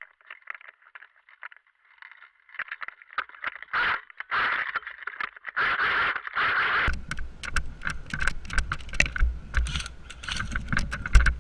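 Rattling, scraping and clicking of airsoft gear as a player moves and runs through forest undergrowth. It is almost silent at first, builds to dense scrapes and clicks, and from about seven seconds in a low rumble and quick thuds join.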